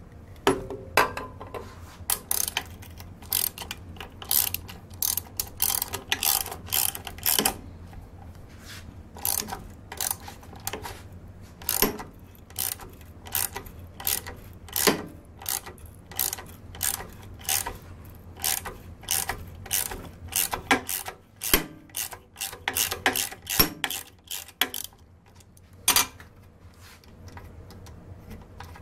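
Irregular sharp metal clicks and clacks, one or two a second, from a drill press vise being worked by hand after being sprayed with WD-40. They stop a couple of seconds before the end.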